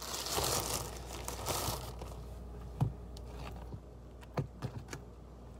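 Plastic bread bag crinkling for about two seconds as a slice is pulled out, then a few soft knocks.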